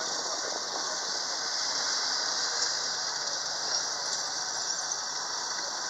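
Main battle tank driving across a grass field: a steady high-pitched squeal and hiss from its tracks and running gear, with engine and track noise underneath.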